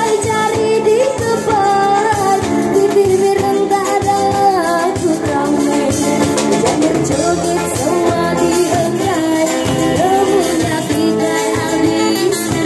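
Live busking band playing an Iban joget song: a singer over acoustic guitar and a drum kit, amplified, with a steady dance beat.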